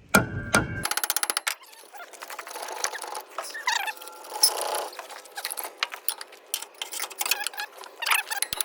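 Metal knocking on a truck's brake drum and hub. A few loud knocks come first, then a rapid run of light metallic clicks and rattles as the drum is worked loose.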